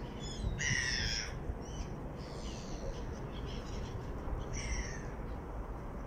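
Gulls calling: a string of about five short, harsh calls, the loudest about a second in and another near five seconds, over a steady low rumble.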